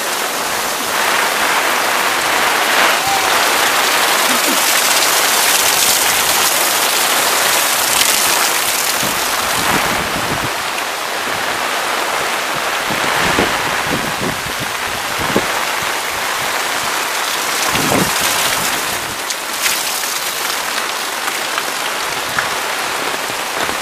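Heavy rain pouring down onto a flooded street: a dense, steady hiss.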